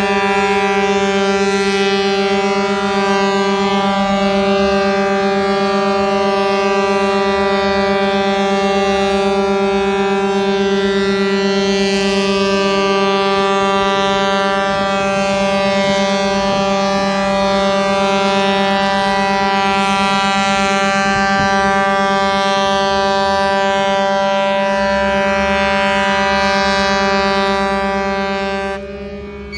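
A ship's horn sounding one long, steady blast without a break, fading out near the end.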